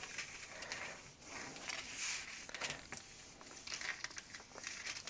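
Hand-held covering iron sliding over yellow iron-on plastic covering film as it is stuck down onto a model plane's tail surface. It makes faint rustling, with light scattered crinkles and ticks.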